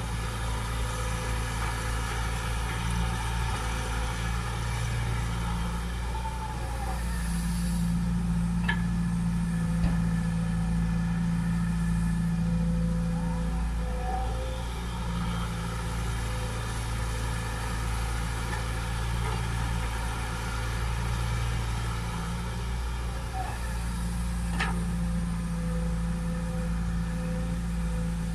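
Caterpillar hydraulic excavator's diesel engine running steadily under digging and loading work. Its note shifts between a lower and a higher pitch every several seconds as the load changes, with two brief sharp clinks about 16 seconds apart.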